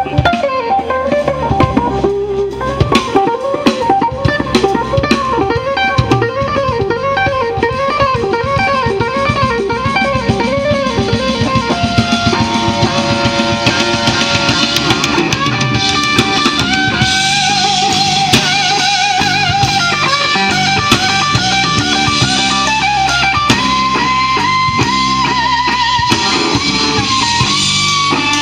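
Live blues band playing: an amplified electric guitar lead with bent, wavering notes over bass and drums.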